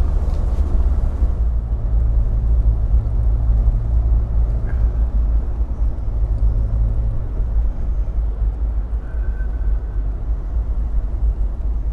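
Car engine and road noise heard from inside the cabin while driving at about 40 mph, a steady low rumble; the engine is not yet fully warmed up. A steady hum in the sound drops away a little over halfway through.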